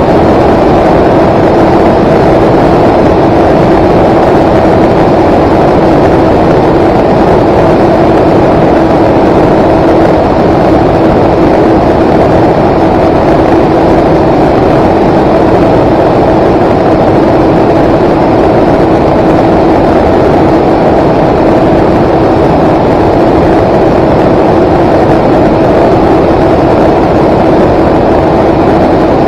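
The motor and propellers of the aircraft carrying the camera, running steadily throughout: a loud, constant hum at one unchanging pitch over a rush of air.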